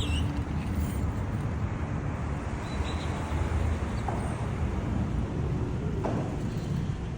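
Steady low background rumble, with a few faint short knocks.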